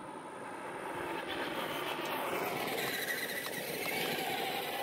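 Electric motor and drivetrain of a Traxxas RC truck whining as it drives, getting louder over the first couple of seconds, with the pitch rising and falling as it speeds up and slows.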